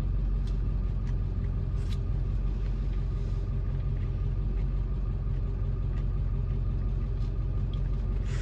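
Steady low rumble like an idling vehicle engine, with a few faint clicks scattered through it.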